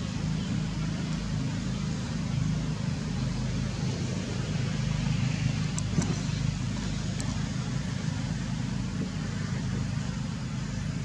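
Steady low engine rumble, with a few faint short ticks about halfway through.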